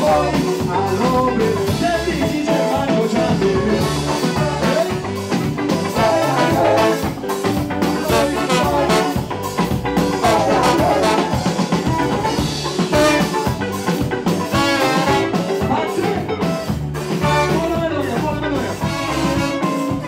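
Live calypso band playing, with a horn section including trombone, electric guitar and a steady beat, and a lead singer on microphone.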